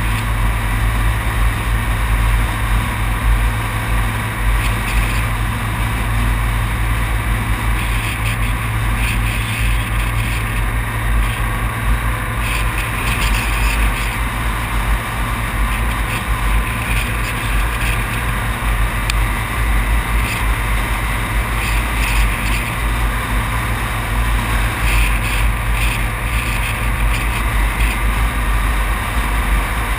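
Steady rush of wind and road drone from a vehicle driving at speed, with a low rumble throughout, picked up by a camera mounted on the outside of the vehicle.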